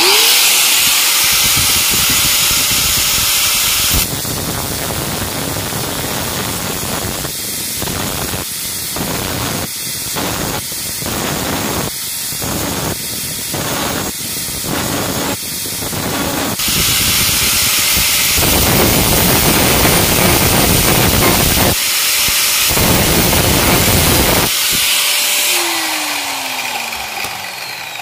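An angle grinder with a thin cut-off disc cuts a groove around the metal splined shaft of a washing machine gearbox while the shaft is turned by hand; the groove is for a circlip that locks the pulsator on. The grinder starts at the outset, and the cutting is broken by a run of short dips, about one a second, in the middle. Near the end it is switched off and winds down with a falling whine.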